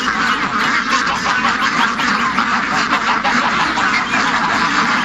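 Many ducks quacking at once, a dense, steady chatter of overlapping calls.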